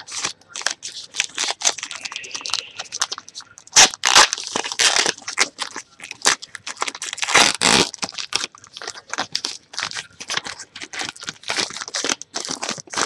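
A trading-card pack wrapper being torn open and crinkled by hand: an irregular run of crackling rips and rustles, loudest about four and seven and a half seconds in.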